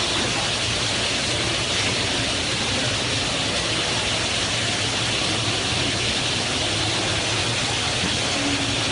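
Two-head aluminium cutting saw with 500 mm blades running, a steady hiss with a faint low hum underneath.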